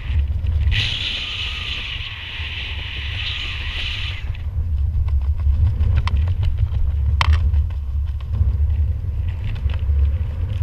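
Wind buffeting a helmet camera's microphone during a descent under an open parachute canopy: a steady low rumble, with a higher hiss over the first few seconds and a couple of sharp ticks around six and seven seconds in.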